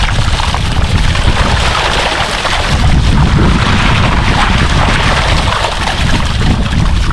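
Wind buffeting the microphone in a low, uneven rumble over steady splashing and sloshing of pond water as people wade and haul a seine net through it.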